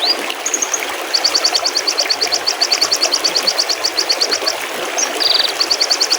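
Steady babbling of a small stream, with a songbird singing a rapid trill of high, quick up-slurred notes, about ten a second. The trill comes twice, broken by a short buzzy call.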